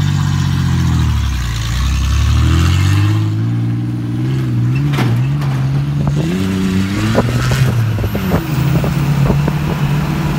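Compact pickup truck's engine running under load, its pitch falling, then rising and dropping in steps as it is revved while driving across a field. Scattered clicks and rattles come in during the second half.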